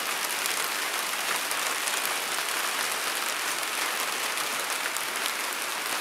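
Steady rain falling on garden leaves and bare ground: an even hiss with faint, scattered drop ticks.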